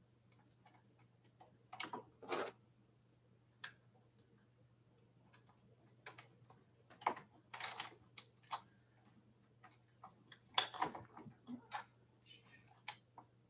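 Faint, irregular light clicks and knocks of hands and a tool working on an e-bike's handlebar and stem, about a dozen spread unevenly through, over a faint steady low hum.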